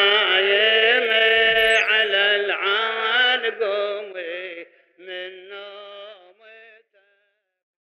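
A man's voice chanting a line of an Arabic Muharram elegy (latmiya), holding long, wavering notes. After about four seconds it breaks into shorter, quieter phrases and stops about seven seconds in.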